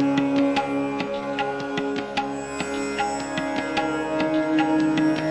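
Instrumental background music: plucked string notes and light percussion over a held drone.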